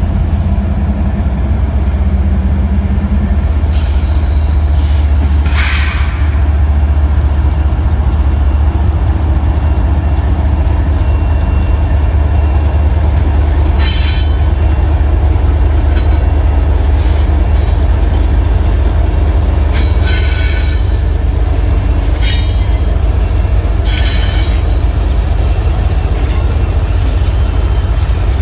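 Union Pacific diesel freight locomotives and cars passing close by with a loud, steady low rumble. Short bursts of high wheel squeal break in several times.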